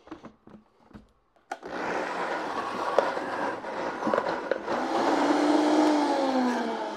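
Vitamix blender, after a few light clicks, starting up about a second and a half in and running at high speed, grinding toasted walnuts and roasted garlic with starchy cooking water into a thick paste. The motor's tone bends down near the end as the mix thickens.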